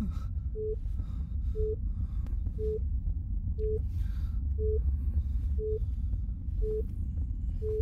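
A UPS's alarm beeping: short low beeps of one pitch, one a second, eight in all, the sign of a UPS that seems to have run out of charge during a power cut. A steady low rumble runs underneath.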